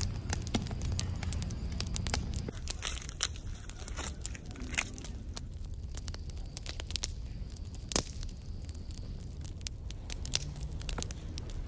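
Wood logs burning in a metal campfire ring, crackling with irregular sharp pops over a low steady rumble of the flames; one louder pop comes about eight seconds in.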